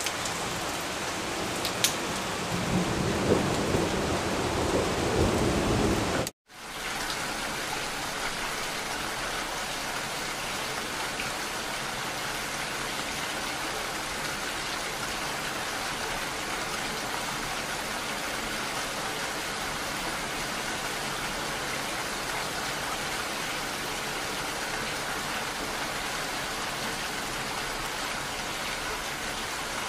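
Steady rainfall, with a low rumble of thunder building over the first few seconds. The sound cuts out for an instant about six seconds in, then even, steady rain continues.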